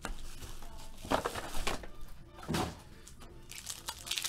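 Trading card packs being handled and pulled from a cardboard box: a few short knocks and scrapes, then the crinkling of a foil card pack near the end.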